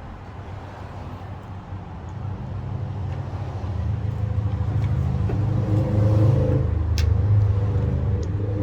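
A motor vehicle's engine rumbling close by, growing steadily louder over several seconds. A sharp click near the end.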